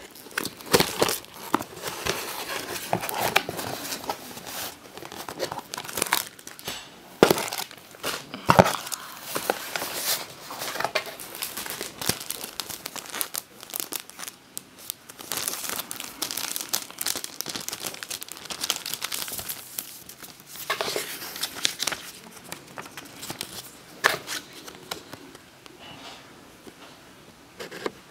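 Hands opening a cardboard shipping box and handling its packing: tearing and crinkling of cardboard and clear plastic wrap, with irregular rustles and sharp clicks that thin out near the end.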